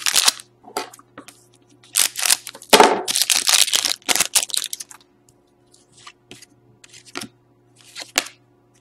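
A foil trading-card wrapper (a Panini Totally Certified hockey pack) being torn open and crinkled by hand, in a run of sharp rips and crackles, the longest about three seconds in. Lighter rustles follow near the end as the cards are handled.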